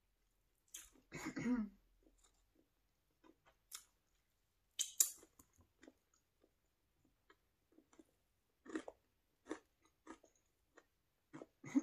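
Close-miked chewing of food: scattered wet mouth clicks and lip smacks with sharp crunches, the loudest crunch about five seconds in and a run of them near the end.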